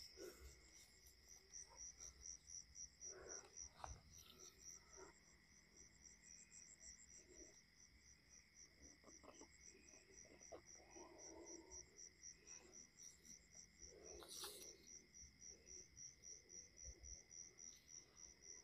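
Faint night insect chorus: crickets chirping in a fast, even pulse over a constant thin high whine. Soft rustling and small clicks of hands working in grass come and go.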